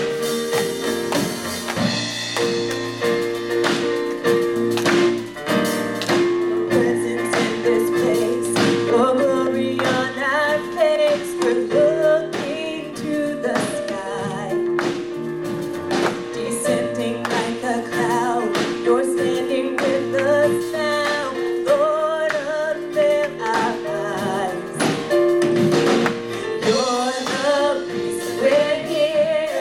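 Contemporary worship song: a band holding sustained chords over a steady drum beat, with a lead vocal singing the melody over it from about eight seconds in.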